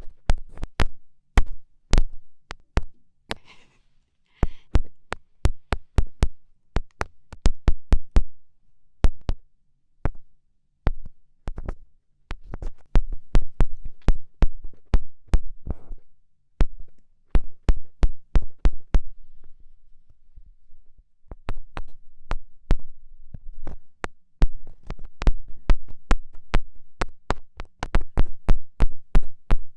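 Fingertips poking and tapping directly on a microphone: a long series of sharp, close taps with a deep thump to each, sometimes in quick runs of several a second, sometimes slow and spaced, with a quieter gap of about a second and a half near the middle.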